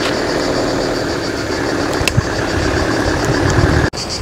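Car engine idling steadily while stopped, with insects chirping in a fast pulsing rhythm over it; the engine sound cuts off abruptly near the end.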